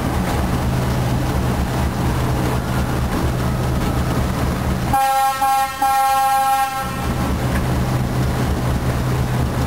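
D12E diesel locomotive heard from its cab: the engine runs with a steady drone, and about five seconds in the locomotive's horn sounds, a short blast and then a longer one of about a second.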